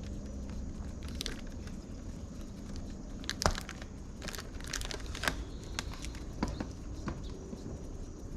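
Scattered clicks, knocks and rattles of an exhaust fan being worked loose and pulled out, with one sharp knock about three and a half seconds in, over a steady low hum.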